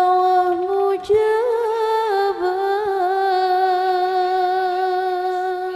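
A woman's solo voice singing an Arabic sholawat line, holding one long ornamented note with a few melodic turns about a second in, then trailing off at the end.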